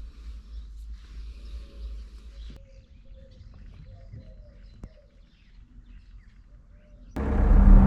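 Faint outdoor ambience with birds calling, and a low rumble of wind on the microphone for the first couple of seconds. Loud guitar music starts suddenly near the end.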